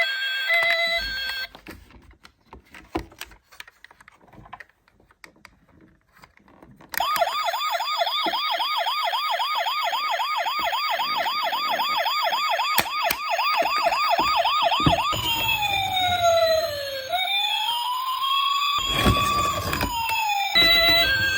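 Ambulance siren, electronic: after a few seconds of faint clicks, a fast yelp warbling up and down several times a second sounds for about eight seconds, then changes to a slower wail rising and falling, with a brief rumble under it near the end.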